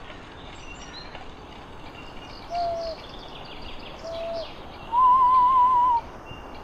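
Outdoor ambience with birds chirping. From about two and a half seconds in, loud pure whistle-like notes enter: two short low ones, then a longer, higher one with a wavering vibrato, the opening of a music track.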